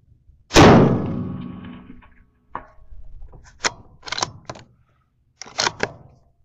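A .308 Winchester rifle fires once about half a second in, the report echoing for over a second. About two seconds after the shot a short faint ring comes back from the steel target hit at about 500 yards, followed by a run of metallic clicks as the rifle's bolt is worked.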